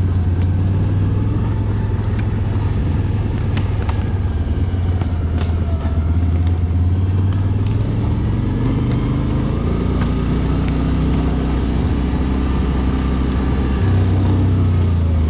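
ATV engine running at a steady speed while riding, with a few light knocks.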